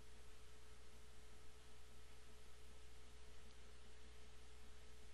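Faint steady background hum and hiss with a thin steady tone running through it: the recording's own electrical noise.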